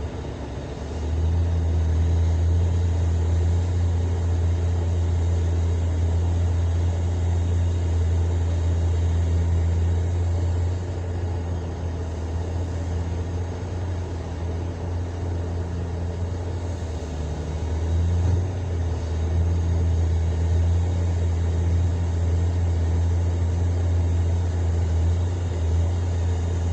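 Hyundai 1250-9 excavator's diesel engine running with a steady low hum. It picks up about a second in and eases and comes back up twice, as the machine's load changes while it works.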